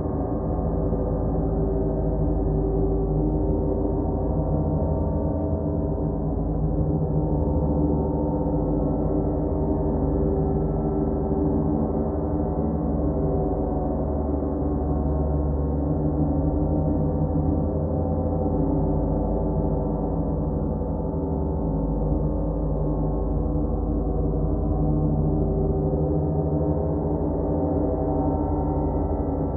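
Large suspended gongs played continuously in a gong bath: a steady, dense wash of many overlapping low tones, with no single strike standing out.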